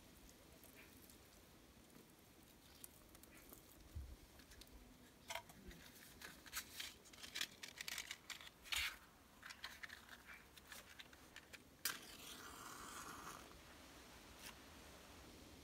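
Faint crackling and rustling of dry sticks and bark being handled in a small cinder-block fire pit, a run of short sharp clicks in the middle. About twelve seconds in comes a sharp scrape followed by about a second of hiss as a match is struck and flares.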